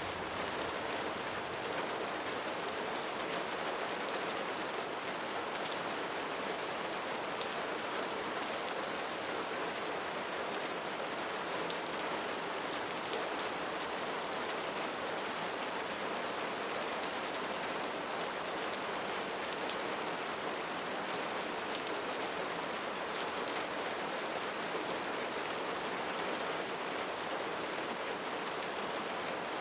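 Steady rain falling on leaves, an even hiss of many fine drops with no pauses or changes.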